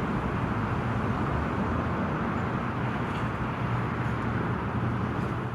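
Road traffic noise: a motor vehicle's engine running with steady road noise, dropping away near the end.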